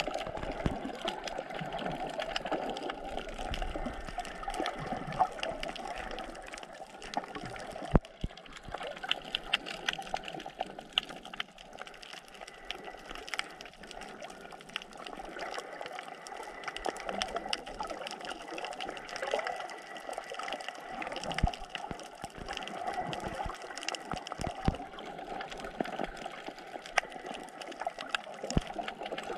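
Underwater sound recorded by a camera below the surface on a coral reef: a steady muffled wash of moving water with a dense, fine crackling, and a few dull thumps, the sharpest about eight seconds in.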